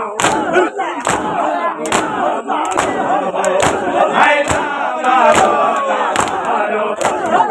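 Crowd of men doing matam: open-handed slaps on bare chests struck together in unison at a steady beat of a little more than one a second, over loud crowd shouting and chanting.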